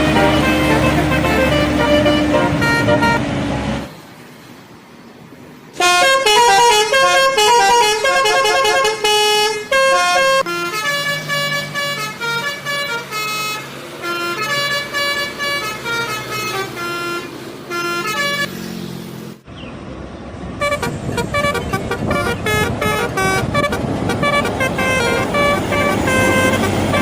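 Bus telolet horns playing quick multi-note tunes, several in turn, with a bus engine running under the first and last. There is a brief lull about four seconds in.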